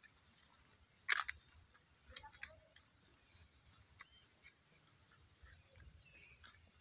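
Quiet outdoor ambience: a faint high chirp repeating steadily about five times a second, with a sharp click about a second in and a few softer clicks and short calls after it.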